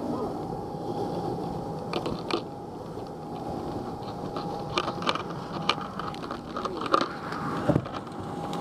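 Steady mechanical running noise with a constant tone, overlaid by scattered knocks and clicks.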